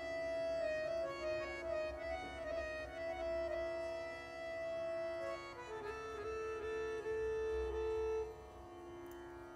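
Harmonium playing a slow melody of held notes that step up and down over a steady lower drone note, with no drums; it gets softer about eight seconds in.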